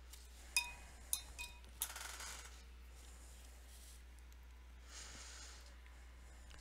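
Paintbrush clinking four times against the rim of a rinse-water jar, each clink ringing briefly, followed by a short swish and a fainter one about five seconds in.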